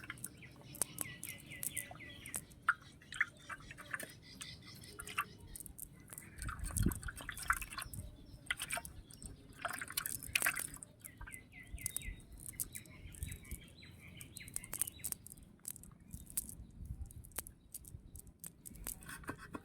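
Small birds chirping in runs of quick short notes, twice, among scattered drips, clicks and small splashes of water, with one low thud about seven seconds in.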